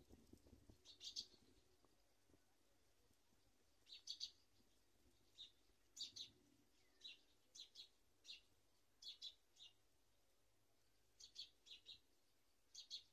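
Faint, short, high-pitched bird chirps, some single and some in quick pairs or triples. After the first second they come irregularly, about every second or so.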